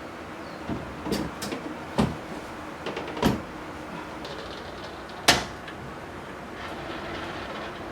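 Items being handled and set down in a refrigerator: a series of light knocks and clicks of containers and trays on the shelves, the sharpest and loudest about five seconds in.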